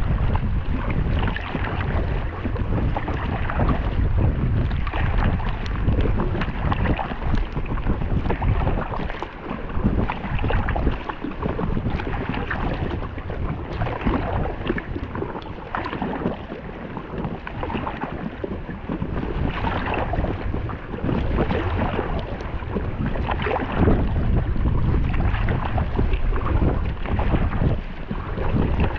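Strong wind buffeting the microphone in a low rumble, with water splashing and slapping irregularly around an Intex Challenger K1 inflatable kayak.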